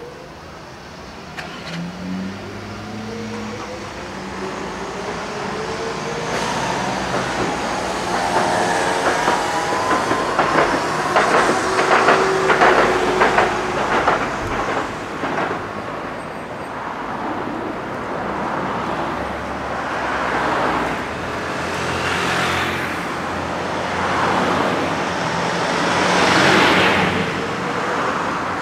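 Streetcars of the Hiroshima Electric Railway run past along with road traffic. A motor whine rises in pitch as a tram accelerates, and a run of clicks and clatter comes from the wheels on the rails.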